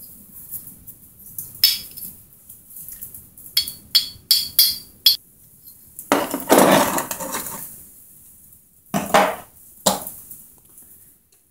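Metal chainsaw engine parts knocking and clinking on a wooden workbench as the engine is taken apart: a quick run of sharp, ringing knocks about four seconds in, a longer clatter about six seconds in, and two more knocks near the end.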